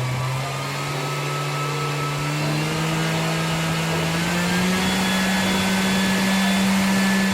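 Milwaukee M18 cordless random orbit sander running, its motor tone climbing slowly and steadily in pitch as the speed is turned up.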